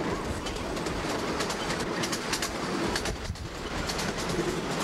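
Rumble and rattling clatter of a moving vehicle, heard from on board, with many quick clicks over a steady noise; it dips briefly a little past the middle.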